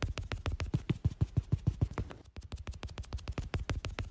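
Makeup brush dabbing and buffing against the face close to the microphone: a quick run of soft taps, about eight to ten a second, breaking off for an instant about two seconds in.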